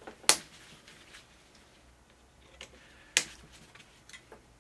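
Hand screwdriver loosening the motor-mount screws on an electric skateboard's belt-drive truck: two sharp clicks about three seconds apart, with a few faint ticks between and after.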